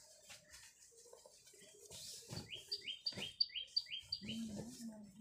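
A bird calling a quick run of about six falling chirps, about three a second, over a couple of light knocks. Near the end a steady low hum begins.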